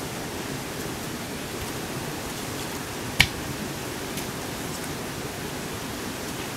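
One sharp knock of stone against stone about three seconds in, as rocks are handled and set down, over a steady hiss.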